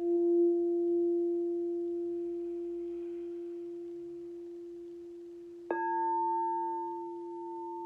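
Singing bowl ringing with a steady low tone that slowly fades. It is struck again near the end, adding a brighter, higher tone over the low hum.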